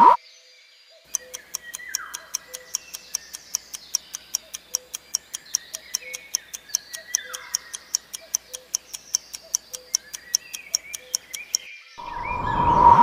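Quiz countdown-timer sound effect: quick, evenly spaced clock ticks, several a second, over faint chirping sounds. A rising whoosh swells near the end.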